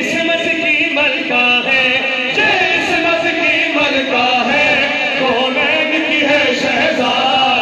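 Several men singing a devotional song together into microphones, their voices amplified.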